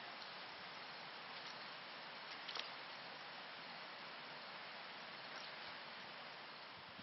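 Faint, steady outdoor hiss with a few soft ticks, and one slightly louder click about two and a half seconds in.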